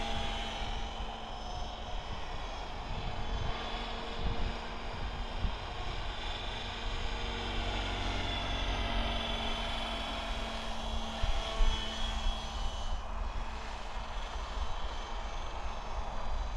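Logo 700 electric RC helicopter flying: a steady whine from its motor and rotor blades that shifts in pitch as it manoeuvres. Wind buffets the microphone underneath.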